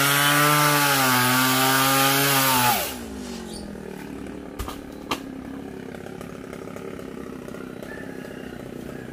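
Two-stroke chainsaw running at high speed while cutting through a coconut palm trunk. About three seconds in it is let off and winds down to a low idle. Two sharp knocks follow a couple of seconds later.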